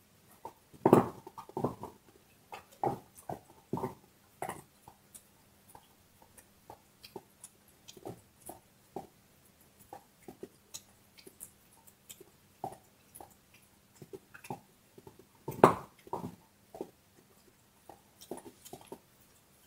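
Dog gnawing on a large bone: irregular crunching and cracking of teeth on bone, with loud cracks about a second in and again near the end.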